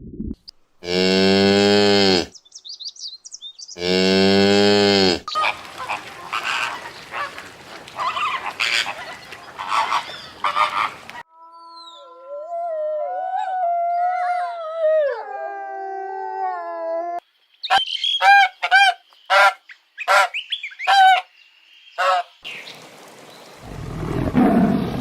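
A series of different animal calls one after another, opening with two long, deep cow moos. Then come a noisy stretch, some gliding calls, and a quick run of short honking calls.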